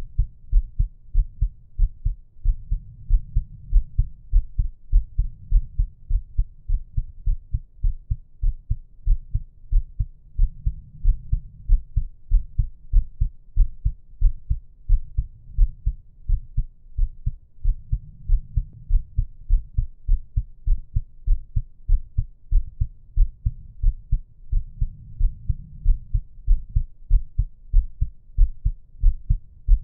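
Human heartbeat at rest, recorded close up: steady, regular low thumps, about two a second, with slow swells of breathing noise underneath.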